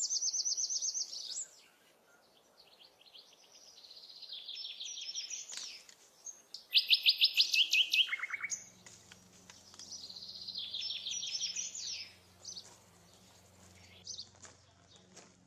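Songbird singing outdoors: a series of fast trilled phrases of rapidly repeated high notes, with pauses between, the loudest phrase about halfway through.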